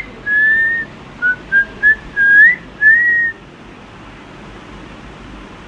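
Whistling: a quick phrase of clear single-pitch notes, a long note, three short chirps, then a rising note and a final long note. It stops about three seconds in, leaving a steady faint hiss.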